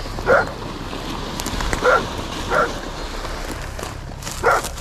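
A dog barking four times, short single barks at uneven intervals, over steady outdoor background noise.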